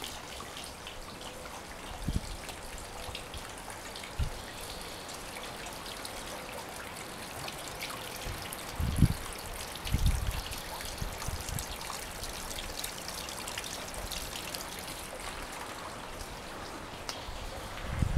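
Water trickling and dripping steadily in a small rock garden fountain, with a few short low thumps, the loudest about nine and ten seconds in.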